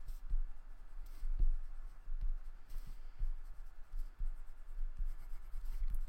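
Oil pastel rubbing on paper in short, irregular strokes as small dots are coloured in, with soft taps of the stick against the paper on the table.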